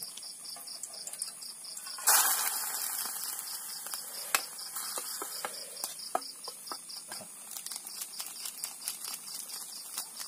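Night insects chirping steadily in a fast pulsing rhythm, about four pulses a second. About two seconds in, pieces of snakehead fish go into a hot pot on a portable gas stove with a loud sizzle that slowly dies down, followed by a wooden spoon clicking and scraping against the pot.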